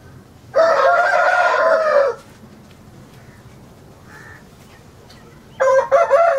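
Rooster crowing twice. One loud crow of about a second and a half comes about half a second in. A second, choppier crow starts near the end.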